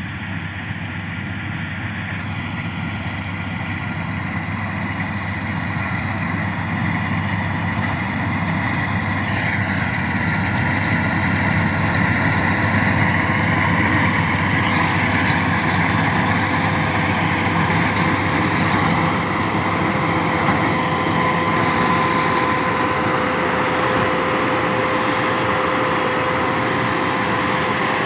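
Wheat combine harvester running steadily: a heavy engine drone with a steady whine over it, growing louder over the first dozen seconds and then holding.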